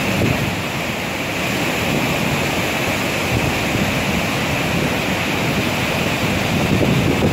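Ottawa River floodwater pouring through the Chaudière Falls dam gates: a loud, steady rush of churning whitewater from a river in flood.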